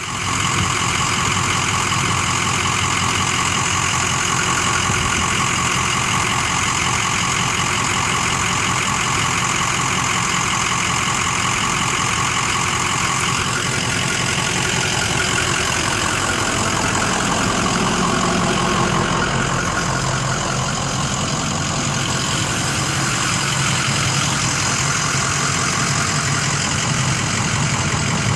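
2004 Ford F-450 Super Duty's 6.0-litre Power Stroke turbodiesel V8 idling steadily, running great.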